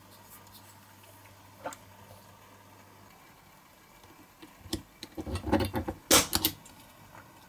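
A small metal hand tool clicking and scraping against a thin steel sheet as it is shaped over a wooden block: a single click, then a quick run of clicks and scrapes in the second half, the loudest about six seconds in.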